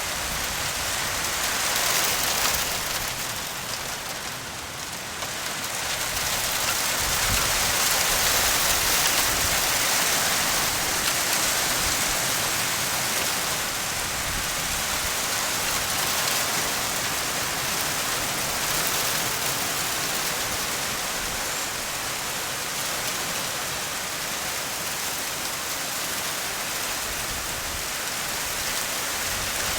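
Precipitation falling steadily, an even hiss with no engine running underneath.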